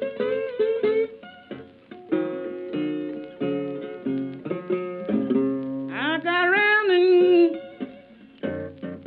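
Background music: plucked guitar notes, joined about six seconds in by a long gliding, wavering line.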